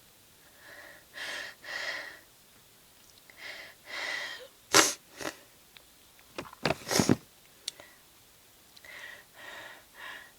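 A woman sneezing: a run of catching breaths builds up, then sharp, loud sneezes break out about halfway through, and a few more quick breaths follow near the end.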